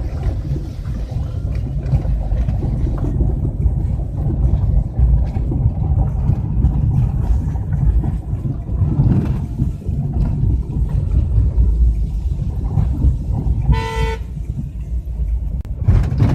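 Steady low rumble of a car on the road, with wind on the microphone. A car horn gives one short toot near the end.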